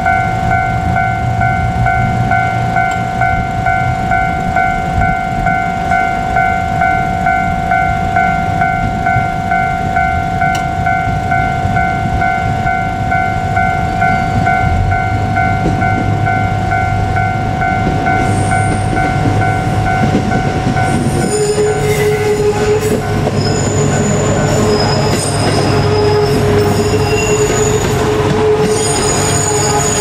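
A level crossing warning bell rings in a steady pulsing pattern and stops about two-thirds of the way through. Meanwhile a KiHa 200 diesel railcar approaches and rolls past with its engine running. In the last third its wheels give short high squeals on the yard track.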